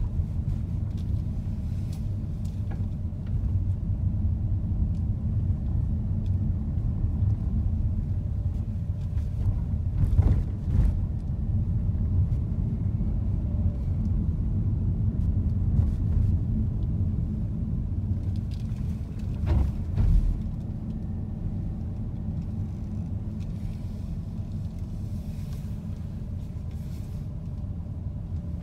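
Low, steady rumble of a car driving slowly, heard from inside the cabin. About ten seconds in and again about twenty seconds in come pairs of short thumps, front then rear wheels jolting over road bumps.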